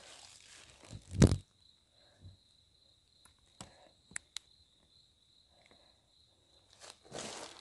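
Night insects singing in a steady high trill, with a heavy thump about a second in, a few sharp clicks, and rustling footsteps near the end.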